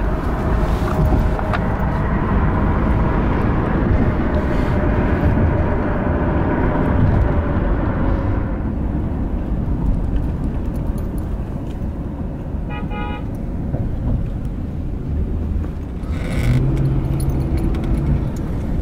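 Steady low rumble of a vehicle, with a short horn-like tone about thirteen seconds in.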